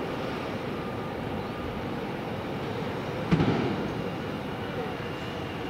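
Aircraft engines running steadily at the airport, with faint steady whining tones in the noise. A sudden thump about three seconds in.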